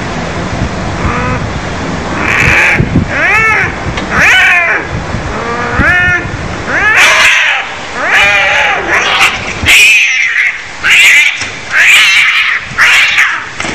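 Cats yowling in a fight: a run of drawn-out calls, each rising and then falling in pitch, about one a second, turning harsher and noisier from about halfway in.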